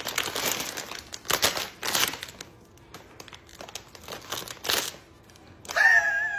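Crinkly plastic chip bag rustling and crackling in irregular bursts as it is folded over and clipped shut with plastic hanger clips. Near the end, a high, wavering tone is the loudest sound.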